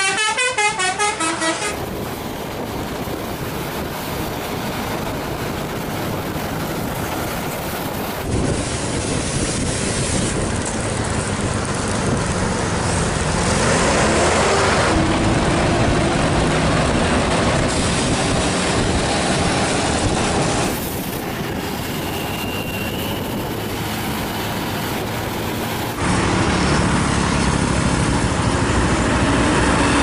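A bus's telolet basuri musical horn plays a quick warbling multi-note tune for the first couple of seconds. After that, bus engines and road noise run on through several cut-together clips of buses passing.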